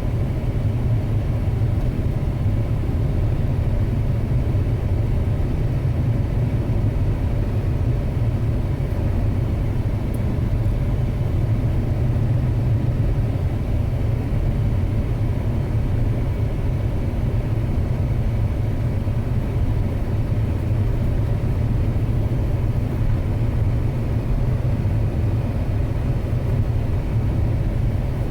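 Steady low rumble of a 2006 Ford Expedition driving, engine and road noise together, with no change in pitch or level.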